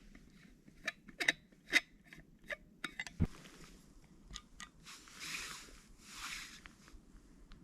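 Nordic skates on thin first ice of a lake: a series of sharp clicks and knocks in the first half, then two swishing glides of the blades near the end.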